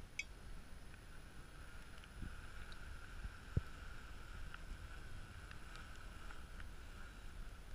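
Wind buffeting the microphone, with the faint steady hum of a multirotor drone's propellers from about a second in. One sharp knock comes about three and a half seconds in.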